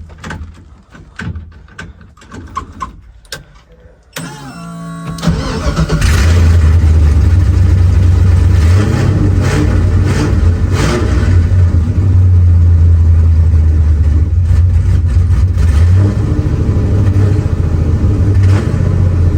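A few light clicks and knocks, then about four seconds in the car's starter cranks briefly and the engine catches and runs loudly at a steady idle. The exhaust sounds rough from an exhaust leak at the cut-off header.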